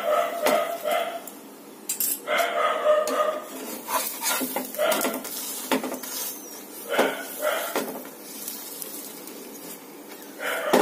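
Metal spoon and steel spatula clinking and scraping against a frying pan as a potato-stuffed paratha is oiled and pressed while it fries, with a few short pitched sounds in between.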